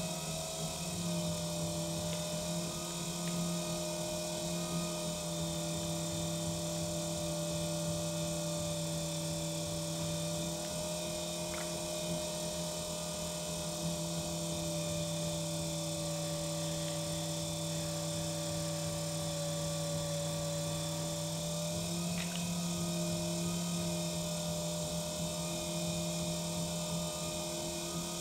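Electric potter's wheel motor running at a steady speed: a constant hum made of several steady tones, which shift slightly about three quarters of the way through.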